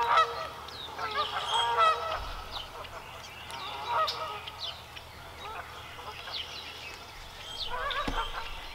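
Canada geese honking repeatedly in a string of short calls, busiest near the start, about two seconds in, and again near the end.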